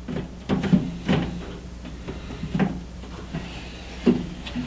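A motherboard knocking and clattering against a PC case's metal chassis as it is worked into place, about five separate knocks spread through a few seconds.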